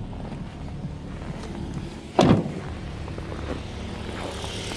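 Ford Focus 2's Duratec HE 2.0 inline-four idling cold and steady, with no knock heard yet. A brief loud thump about two seconds in.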